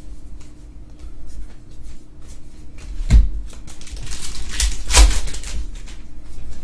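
Trading cards and packs being handled on a table: scattered clicks and rustling, with two louder knocks about three and five seconds in.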